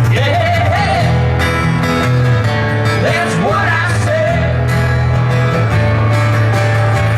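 Band music in a country style, with guitar, a steady bass line and a singing voice.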